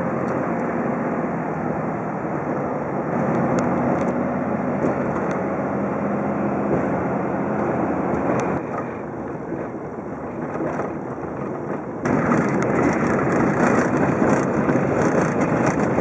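Dodge Ram 3500 pickup truck driving, heard from inside the cab: a steady mix of engine and tyre road noise. It drops a little about halfway through, then turns abruptly louder and hissier about three-quarters of the way in.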